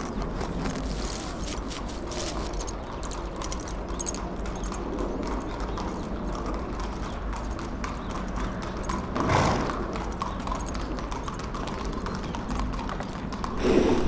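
Horse in a stable stall, its hooves clopping and shifting on the floor in many small knocks, with a louder noise about nine seconds in and again near the end.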